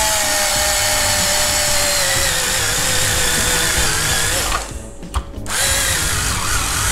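Cordless drill with a 10 mm bit running as it bores out the plastic stakes holding a circuit board in an instrument cluster housing. The motor's whine sinks slightly in pitch as the bit bites, stops about four and a half seconds in, and starts again a second later.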